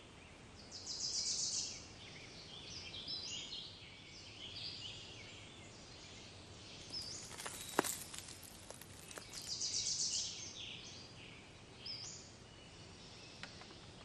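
Small songbirds chirping and trilling high-pitched, with a louder trill about a second in and again about ten seconds in. One sharp click sounds just before eight seconds in.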